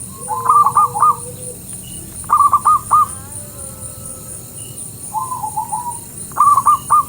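A night bird calling from the bushes in short phrases of about four quick notes, three times, with a softer, lower phrase in between; it is taken for someone calling out from the undergrowth.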